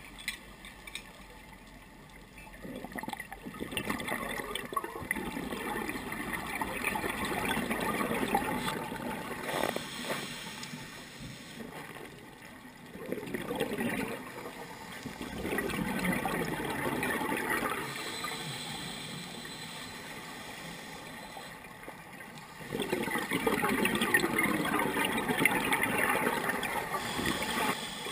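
Underwater scuba breathing: bubbling and gurgling of exhaled air from a diver's regulator, in several long bursts with quieter pauses between breaths.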